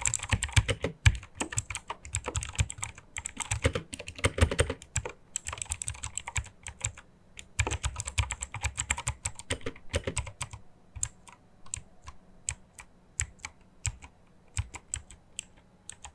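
Typing on a Gamen Titan III mechanical keyboard with clicky blue switches: quick runs of clicking keystrokes, thinning out after about eleven seconds to slower, separate key presses.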